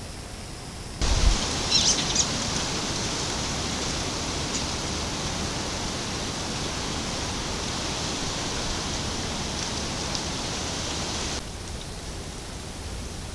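Steady hiss from a trail camera's audio, starting abruptly about a second in with a low thump and a few sharp clicks, then cutting off abruptly near the end.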